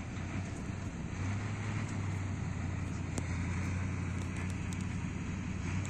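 Off-road trial truck's engine running steadily at low revs as it creeps through mud, the note rising slightly about a second in.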